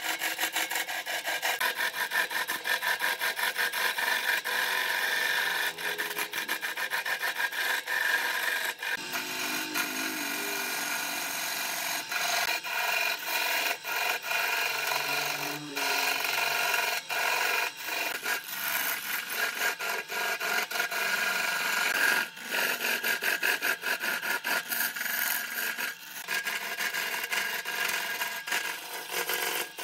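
Turning tool cutting into a spinning segmented wooden vase blank on a wood lathe: a continuous rasping, scraping cut full of rapid clicks, dipping briefly a few times.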